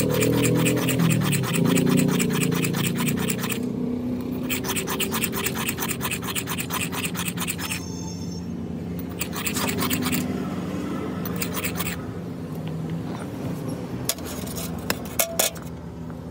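A small steel blade scraped rapidly back and forth on a stone, about seven strokes a second, with short pauses, over background music. A few sharp hammer knocks on steel come near the end.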